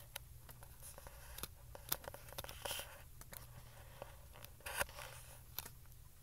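Actively fermenting beer in a glass carboy: faint scattered ticks and two brief bubbling gurgles over a low steady hum.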